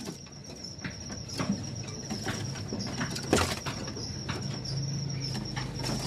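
Caged birds moving about: scattered light knocks and brief wing flutters against the cage, over a steady high-pitched whine, with a low hum coming in near the end.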